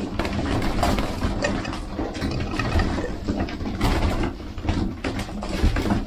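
A crowd of racing pigeons flapping and jostling over a hand of peanuts: a dense, irregular flurry of wingbeats and clattering.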